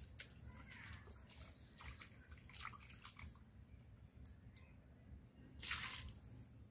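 Faint water drips and small splashes as pieces of fish are washed by hand in water, with one louder splash of water a little before the end.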